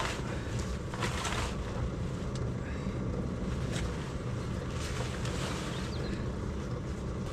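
Fabric motorcycle cover rustling and swishing in several short bursts as it is dragged over a bike, over a steady low mechanical hum.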